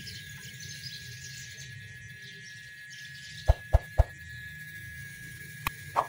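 Outdoor background of birds and insects chirping over a steady low hum. About three and a half seconds in come three sharp clicks in quick succession, and two more near the end: click sound effects of a like-and-subscribe pop-up.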